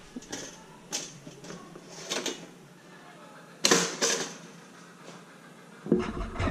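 Electric pop-up toaster: a few light clicks as bread is slotted in, then a sharp double clack about halfway through as the toast pops up.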